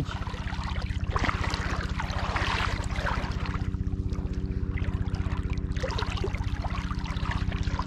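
Shallow seawater lapping and trickling around a camera held at the surface, over a steady low pulsing hum.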